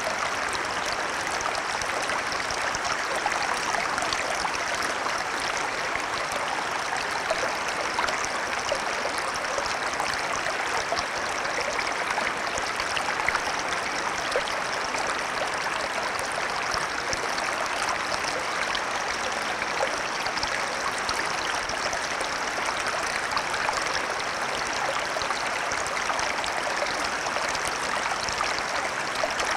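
Small shallow stream: water running over stones in a steady, even babble with many small splashes and trickles.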